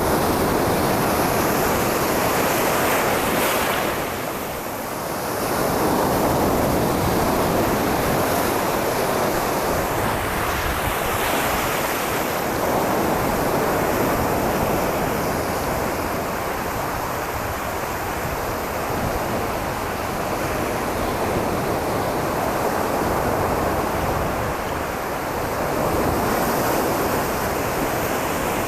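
Ocean waves washing ashore: a continuous rushing surf that swells and eases, with a brief lull about four seconds in.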